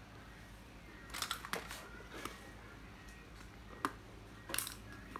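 Spinning fishing reels being handled, with a few quiet scattered clicks and clacks of their plastic and metal parts, some in quick little clusters.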